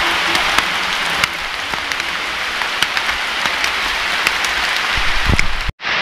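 Heavy rain pouring onto wet paving and tropical foliage: a steady, loud hiss with scattered sharp ticks of single drops. The sound cuts out briefly just before the end.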